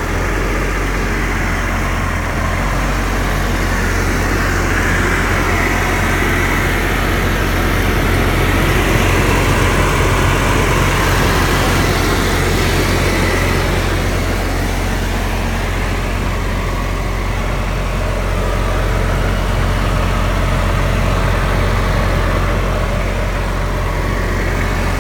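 Onan 12,500-watt diesel generator running steadily on a test run, a constant low hum with a throaty engine note over it.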